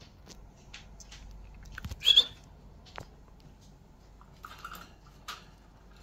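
Pet budgerigars giving a few short chirps and squawks, the loudest about two seconds in, with a sharp click about a second later.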